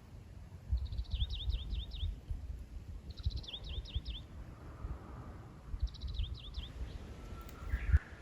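A songbird singing the same short phrase three times a couple of seconds apart: a quick run of high notes followed by several slurred dipping notes. Low uneven rumbling runs underneath, with a knock just before the end.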